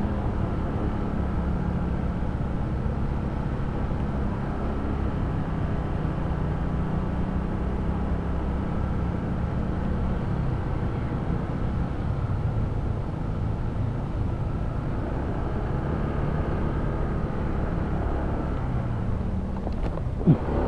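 Honda ADV 160 scooter's single-cylinder engine running steadily under way, its pitch drifting gently up and down, over a low rumble. A sharp knock comes near the end.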